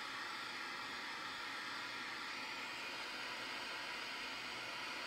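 Micro butane torch flame hissing steadily while it heats a copper washer to flow silver-bearing solder onto a copper strip.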